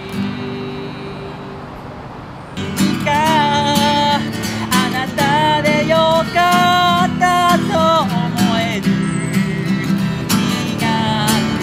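Acoustic guitar strummed, its chords ringing; about two and a half seconds in the strumming gets louder and a man starts singing phrases over it, with a short break near the end.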